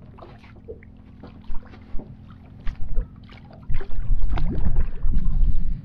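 Clicks, knocks and handling thumps in a small boat as a fish on a rod is brought to the side and taken by hand, loudest and heaviest from a little past the middle to the end. A low steady hum runs underneath.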